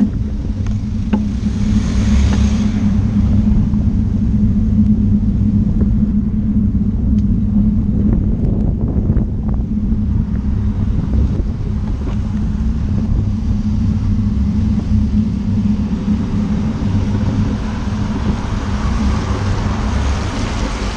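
Steady low rumble of wind and road vibration on a cyclist's camera riding on wet roads. The hiss of car tyres on wet tarmac swells as vehicles pass, about two seconds in and again near the end as a van goes by close.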